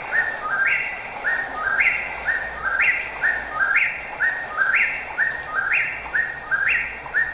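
A bird's whistled two-note song, a higher note followed by a lower one, repeated steadily about once a second.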